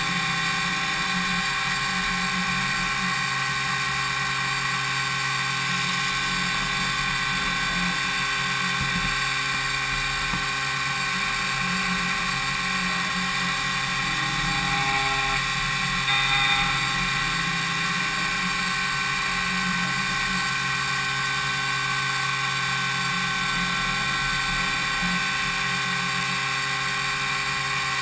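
DMU 70V five-axis machining centre milling an impeller blade: the spindle and cutter run with a steady high whine made of several steady tones over a low hum, briefly a little louder about sixteen seconds in.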